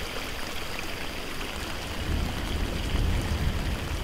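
Rainwater running in a shallow sheet down a rocky hiking trail, under steady rain, with a low rumble in the second half.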